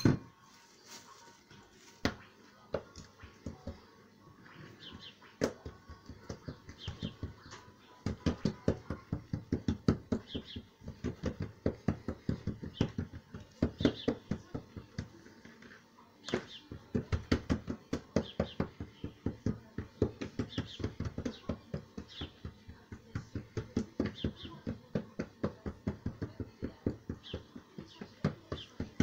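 Hands patting and pressing an oiled ball of msemen dough out flat on a table: a few scattered taps at first, then from about eight seconds in a quick run of soft pats, several a second, with a short break about halfway through.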